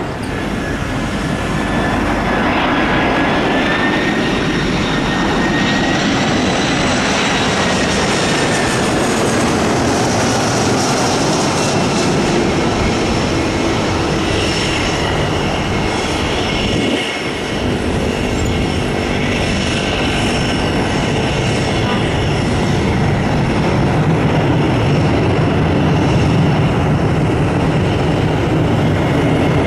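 Airliner jet engines running steadily, with a turbine whine that rises in pitch over the first several seconds. After a brief dip about halfway, the four engines of an Airbus A340 grow louder and deeper toward the end.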